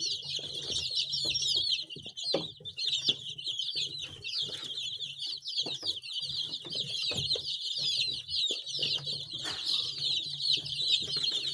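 A brood of baby chicks peeping continuously, many short, high, downward-sliding peeps overlapping at once.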